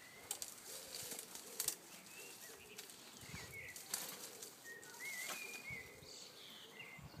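Leaves and branches rustling, with several sharp cracks of twigs as a person climbs up into a leafy tree. Birds chirp in short calls in the background.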